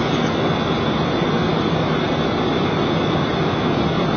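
Steady rushing noise of airflow and engines inside a Boeing 737 cockpit in flight, descending.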